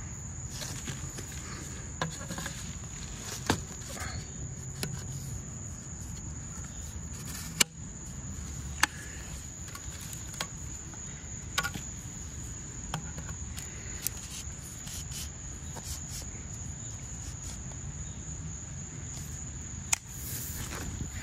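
Steady, high-pitched insect trilling. Over it come several sharp clicks and knocks scattered through, as sections of a carbon paddle shaft are handled and fitted together; the loudest fall about halfway through and just before the end.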